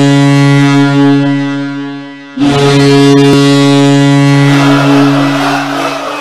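Arena goal horn blowing a low, steady blast that cuts off about two seconds in, then a second long blast right after that fades near the end.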